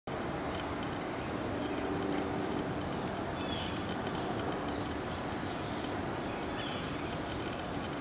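Steady rumble of city traffic, with short, high bird chip calls scattered through it.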